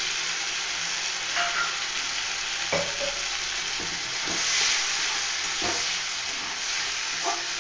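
Poppy-seed paste sizzling in hot oil in an aluminium kadai with onion and tomato, while a metal spatula stirs it, scraping and knocking against the pan a few times.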